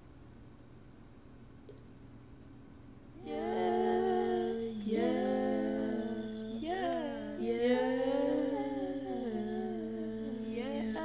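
Faint room tone with a small click for about three seconds, then a voice starts humming a wavering, sliding melody that goes on to the end.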